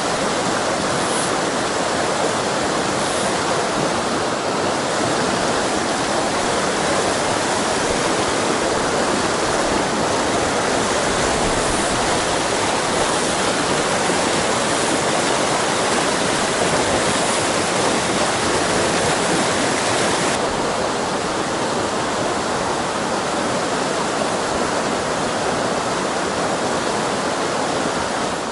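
Fast mountain stream running over boulders in white-water rapids: a steady, full rushing noise. About two-thirds of the way through, the hiss turns slightly duller.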